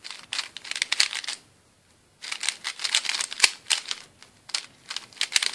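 Plastic 3x3 Rubik's cube being turned quickly by hand: rapid clicking and clacking of the layers snapping round, in two runs with a short pause about a second and a half in.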